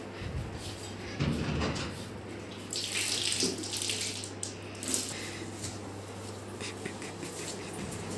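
Water poured and splashing as someone washes up, loudest in a burst of about a second and a half around three seconds in, over a steady low hum.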